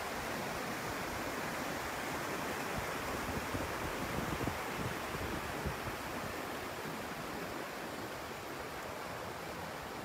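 Shallow mountain stream rushing steadily over boulders and gravel, a dense unbroken rush of water. Wind buffets the microphone with low rumbles, mostly in the first half. The rush grows slightly fainter in the last few seconds.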